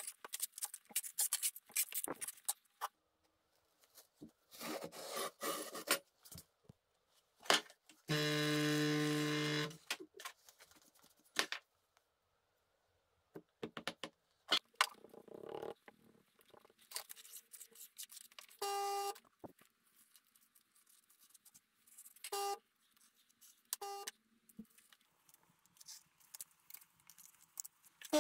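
Scraping, clicking and tapping of a steel straightedge and hands working a sand-casting flask and its molding sand. A steady low buzzing tone lasts about two seconds near the middle, and three short beep-like tones come later.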